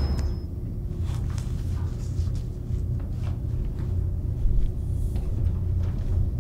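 A steady low rumble, with a few faint soft ticks scattered through it.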